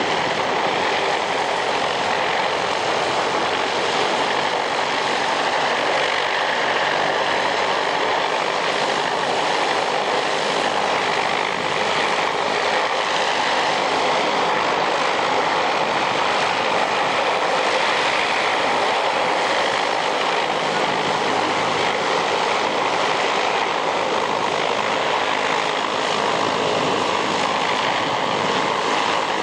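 Propeller aircraft engine running steadily: a loud, even drone that does not change in pitch or level.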